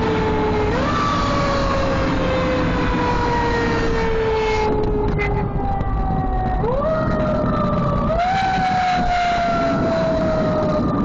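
Mechanical siren on a moving vehicle, wound up quickly about a second in and then coasting slowly down in pitch. It is wound up twice more in quick succession past the middle. A steady rumble of engine and road noise runs underneath.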